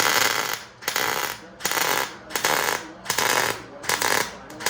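Miller 140 MIG welder laying a string of short tack welds: about seven bursts of arc crackle, each roughly half a second long, starting and stopping sharply as the trigger is pulled and released.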